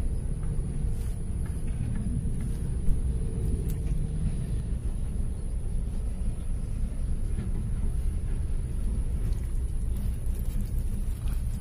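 Wind rumbling on the microphone: a steady low rumble, with one brief knock about three seconds in.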